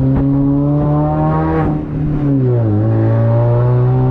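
Supercharged Mini Cooper's four-cylinder engine pulling under acceleration. It dips briefly just before 2 s, and the engine note drops in pitch as it shifts up a gear, then holds steady at the lower revs.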